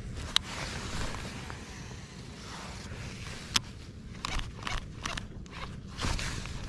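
Wind buffeting the microphone over open water, with handling noise and a few sharp clicks from a baitcasting reel and rod being worked. The clicks come twice, about half a second in and again a little after three seconds, then in a quick cluster late on.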